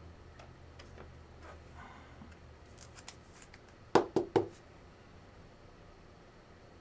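Quiet handling of trading cards and packs, with three quick, sharp snaps about four seconds in.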